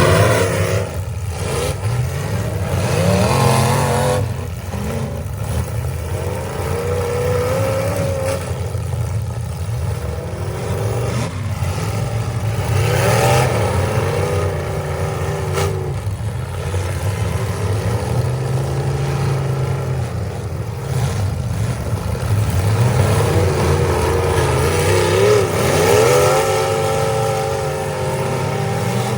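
Several demolition derby cars' engines running and revving hard at once, their pitch rising and falling over a steady low rumble, with a few sharp bangs of metal impacts.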